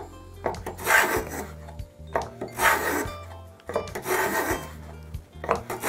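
Hand chisel paring curls off the edge of a wooden block: four scraping cuts, one about every second and a half.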